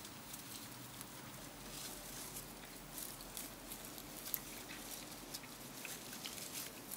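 Faint rustling and scattered small clicks as a litter of wild boar piglets jostles while suckling from their lying sow.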